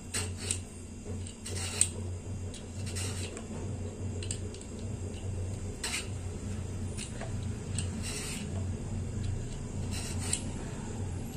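Hand peeler scraping the ridged green skin off a ridge gourd in short, irregular strokes, over a steady low hum.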